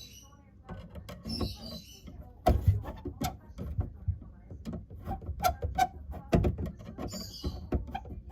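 Irregular knocks, clicks and clatter of hand work, with a few short hissing sounds.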